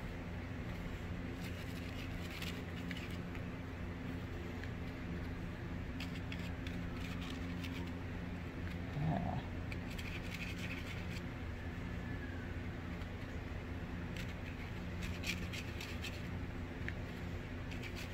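Faint scratchy rustles of a watercolor brush working on crumpled brown paper, in a few short clusters over a steady low room hum. A brief soft blip about nine seconds in is the loudest moment.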